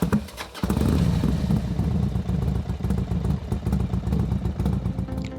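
Royal Enfield Interceptor 650's parallel-twin engine, coming in suddenly about half a second in after a few clicks and running with a steady deep throb.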